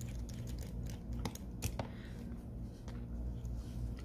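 Small, irregular clicks and scrapes of a plastic spudger prying at a phone's ribbon cable connector, over a steady low hum.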